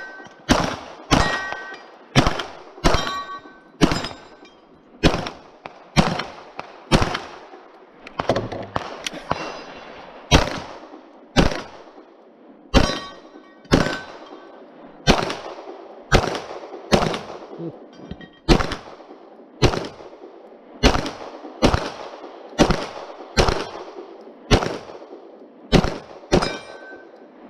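A long string of shots from a Glock 34 9mm pistol, about one a second, with brief metallic ringing after many of them as steel targets are hit.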